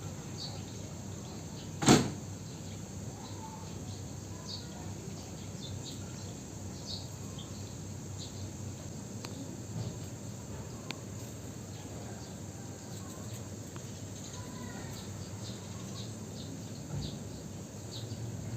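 A single sharp knock about two seconds in, over faint, short, high squeaks scattered throughout.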